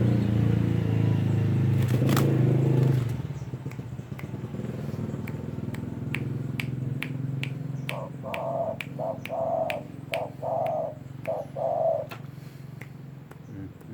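A pet dove cooing, a run of short repeated coo notes from about eight seconds in until near the end. A passing motor vehicle hums loudly over the first three seconds.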